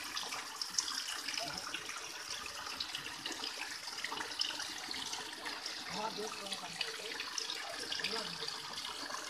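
Water pouring steadily from a row of cow-head spouts and splashing into the drain channel below.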